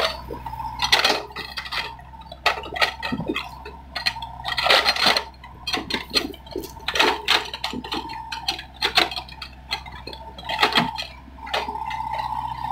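Doosan mini excavator digging: repeated irregular metallic clanks and clinks from the bucket and its linkage, over a steady low engine hum and a steady whine that swells near the end.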